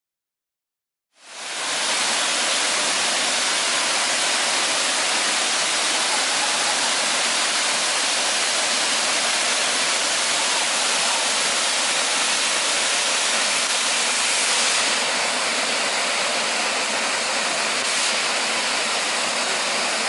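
Steady rush of water falling from a tall waterfall, cutting in suddenly about a second in.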